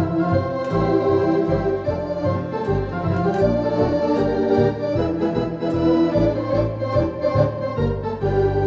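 Ringway RS620 two-manual electronic organ played in the Blackpool theatre-organ style: a lively tune of held chords and melody over a bass line that steps along with the beat.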